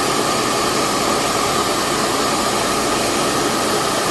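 Dust-extraction fan running steadily with a constant whine over a rushing of air, drawing off graphite dust from sanding and polishing.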